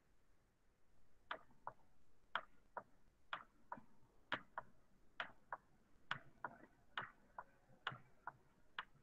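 Computer mouse clicking faintly in pairs, a press and a release about once a second, as short dashes are drawn one by one in a paint program.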